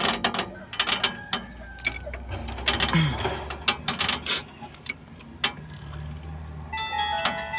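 Ratchet wrench clicking in short, irregular runs as a fitting on a Caterpillar D6R bulldozer's hydraulic strainer housing is tightened back up. Near the end a mobile phone ringtone starts playing a short melody.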